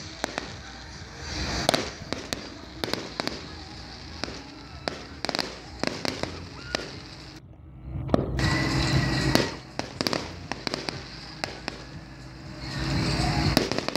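Aerial fireworks bursting: many sharp bangs and crackles in quick succession, in waves that grow louder near the middle and again near the end.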